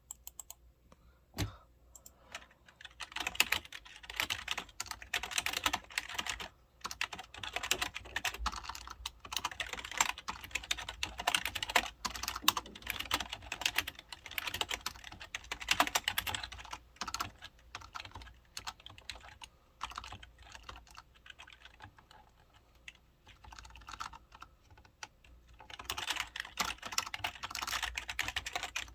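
Typing on a 1998 IBM KB-9930 membrane keyboard: a few single keystrokes, then fast runs of key clicks, with a slower, quieter stretch about two-thirds of the way in before fast typing resumes near the end.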